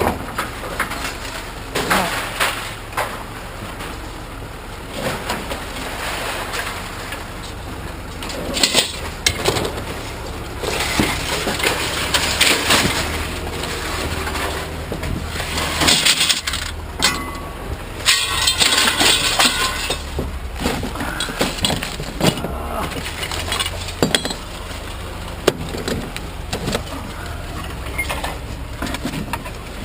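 Scrap metal being tossed and unloaded: repeated clanks, bangs and clatter of loose metal pieces hitting a pile, busiest through the middle.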